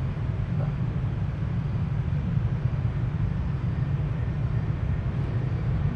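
A steady low rumble with a faint hiss above it, and no distinct sounds standing out.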